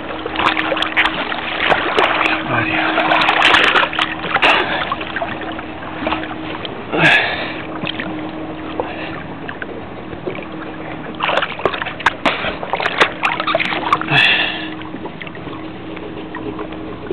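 Water splashing and slapping against a jet ski's hull, with many sharp knocks and a steady low hum that drops in and out. Two short higher-pitched sounds come about seven and fourteen seconds in.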